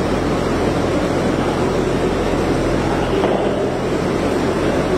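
Steady rumbling background noise with a low, even hum underneath.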